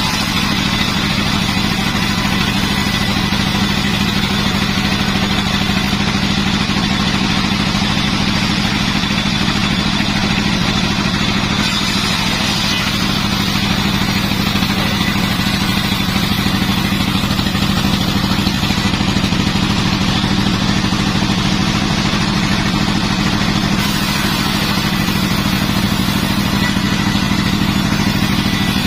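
Sawmill machinery running steadily with an even engine-like drone and a constant mechanical clatter.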